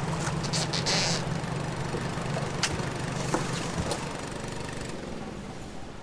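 A vehicle engine idling with a steady low hum that dies away about five seconds in. A short hissing burst comes near the start and a few sharp clicks follow.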